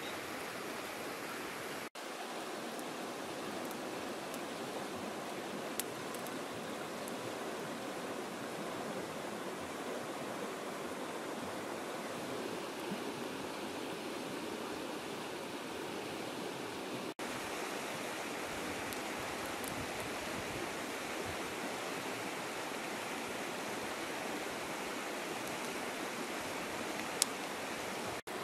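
Steady rushing of river water, with a single sharp click near the end.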